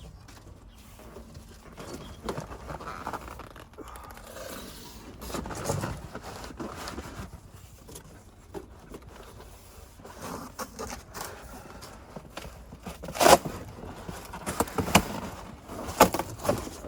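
Cardboard box and styrofoam packing being handled and slid around a subwoofer: scraping and rustling, with several sharp knocks in the last few seconds.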